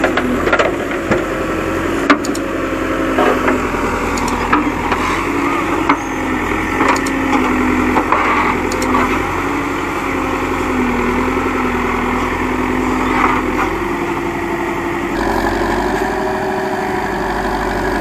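Diesel engine of a Terex backhoe loader running and working, its pitch stepping up and down as the revs change, with a few sharp knocks in the first seconds and a change in the engine note about fifteen seconds in.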